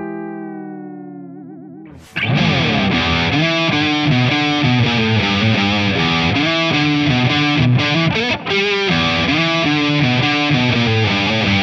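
Gusta GST-05 electric guitar: a clean chord rings out and fades, wavering in pitch just before it ends. About two seconds in, it switches to a loud overdriven lead line of fast changing single notes.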